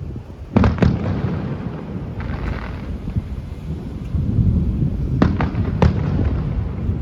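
Fireworks display heard from a distance: sharp aerial bangs with rumbling echoes, a double bang about half a second in and more near the end, and a hissing crackle of a shell around two seconds in.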